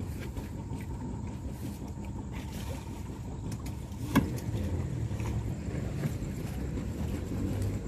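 Low steady engine rumble, with one sharp knock about four seconds in.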